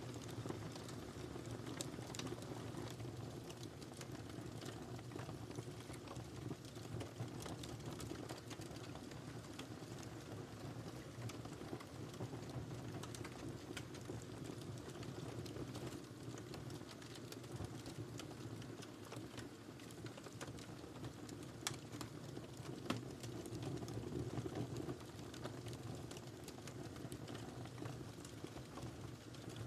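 Wood fire burning in a fireplace: a steady low rumble of flames with scattered sharp crackles and pops, two louder pops a little past the middle.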